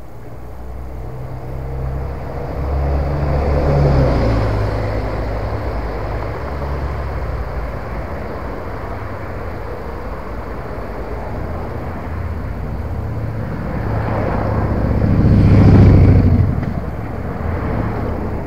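Road traffic passing along a street: motor vehicles, among them a city bus, drive by with a steady low engine and tyre sound. Two pass-bys stand out louder, one about four seconds in and the loudest a few seconds before the end.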